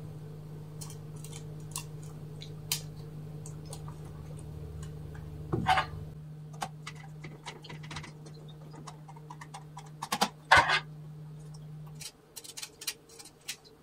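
Small clicks and taps of hands working on a plastic intercom handset unit and its wires, with two louder scraping handling noises about six and ten and a half seconds in. A steady low hum runs underneath and cuts out about twelve seconds in.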